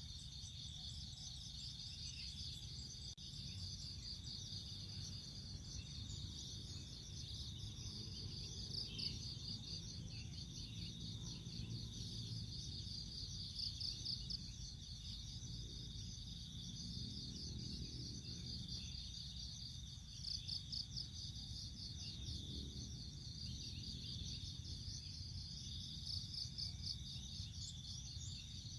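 A steady chorus of high, rapidly pulsing insect trills, with a low buzzing hum of honey bees underneath that swells briefly a couple of times.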